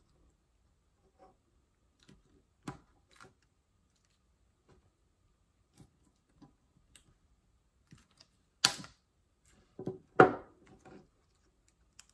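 Small side cutters snipping the leftover ends off soldered battery connections: scattered light clicks and handling taps, with the sharpest, loudest snaps about two thirds of the way in.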